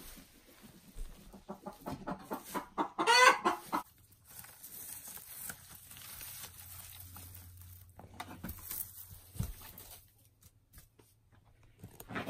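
Hen clucking: a run of short clucks that speeds up into one loud, drawn-out call about three seconds in. Fainter clucks and a low steady hum follow.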